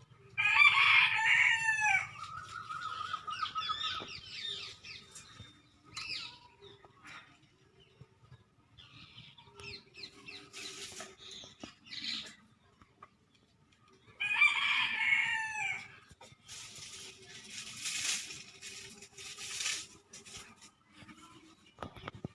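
A rooster crowing twice, about fourteen seconds apart, each crow ending in a long held note. Quieter bursts of scratchy noise come between and after the crows.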